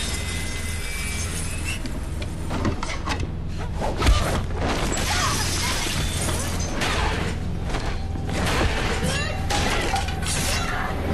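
Dramatic TV-series soundtrack: a low droning score under fight sound effects, with a hard impact about four seconds in and further hits and scuffles after it.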